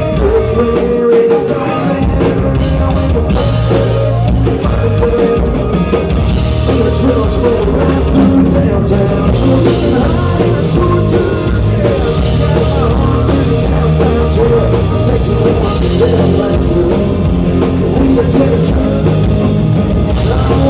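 A full country band playing a song live, loud and steady, with drum kit and acoustic guitar.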